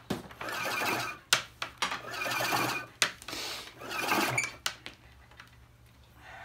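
Power cord being pulled out of the cord-rewind reel of an Electrolux 725 vacuum cleaner: three pulls, each a rattling whir of about a second, with a sharp click between pulls.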